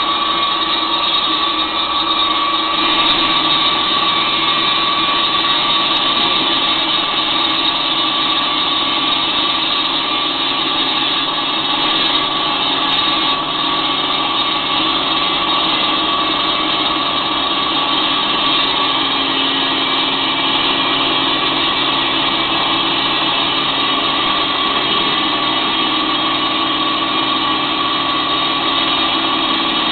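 Concrete slab cutting machine with a 30-inch blade driven by a 15 hp motor, running steadily with a constant high whine.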